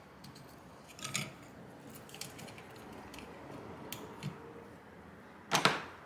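Light clicks and plastic clatter of a replacement fan being handled and pressed into a graphics card's plastic fan shroud, with a louder clack near the end.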